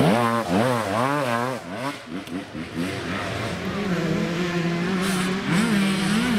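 Enduro motorcycle engine revving hard as the bike passes close, its pitch swinging quickly up and down with the throttle. After a brief dip, another dirt bike holds a steadier engine note, with two short rev rises near the end.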